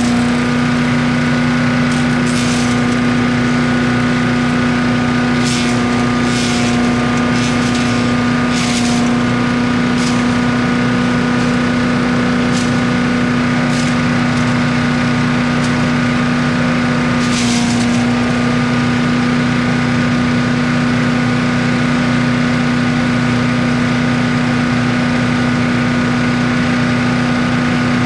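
Gas engine of a wood chipper running steadily at constant speed, with short bursts of higher noise several times as material goes through.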